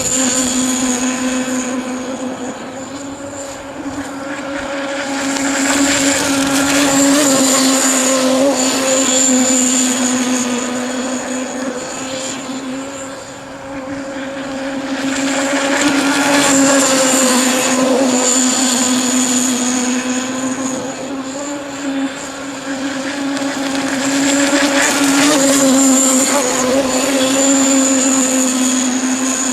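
Zenoah G-25 26cc two-stroke petrol engine of a radio-controlled model power boat running flat out as a steady, high-pitched buzz. It swells and fades several times as the boat passes closer and farther away.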